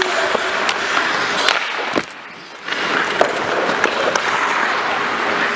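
Ice hockey skates scraping and carving across the ice, with scattered sharp clacks of sticks and puck. The sound drops away briefly about two seconds in.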